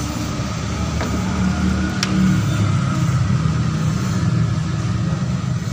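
Car petrol engine idling unevenly with a misfire, a sign of a dead ignition coil. There are two light clicks about one and two seconds in.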